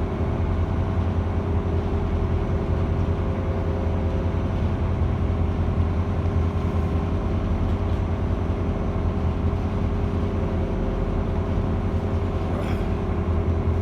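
Steady low drone of a cruise boat's engine heard on board, a constant deep hum with several steady tones above it.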